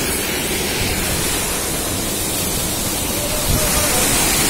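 Muddy floodwater rushing along an eroded earth channel and pouring over a cut bank, a steady rush of water.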